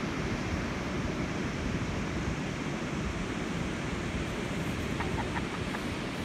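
Steady noise of ocean surf and wind blowing on the microphone, with a few short high chirps about five seconds in.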